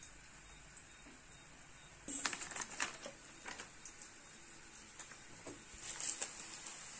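Light rustling and soft clicks from hands handling a plastic-wrapped stack of processed cheese slices and peeling slices off it. The sounds come in two short clusters: one about two seconds in and one near the end.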